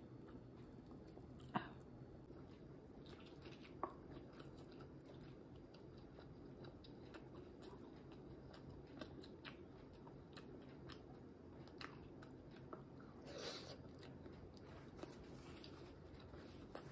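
Faint close-up chewing and biting of fried egg, with soft mouth clicks scattered through. Sharper clicks come about one and a half and four seconds in, and a short longer rustle comes near the end.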